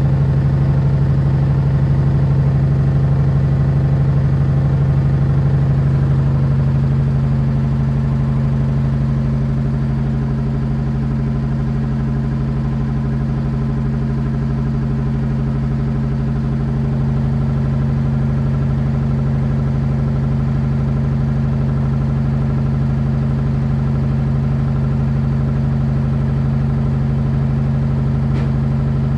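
LG washing machine running with a loud, steady, low drone that sounds like a helicopter; the owner wonders whether it is meant to sound like this.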